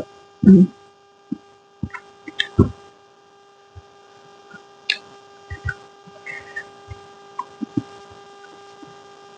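Eating sounds: scattered short clicks and soft knocks of utensils and chewing, a few louder ones in the first seconds, over a steady electrical hum.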